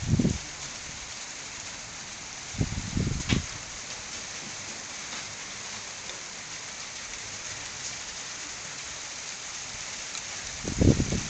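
Steady rain falling in a thunderstorm, an even hiss, with three short low rumbles: at the start, about three seconds in, and near the end.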